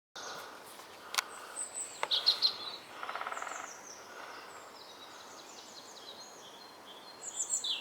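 Wild birds singing and chirping over soft outdoor hiss, with two sharp clicks about one and two seconds in and a short buzzy rattle around three seconds in.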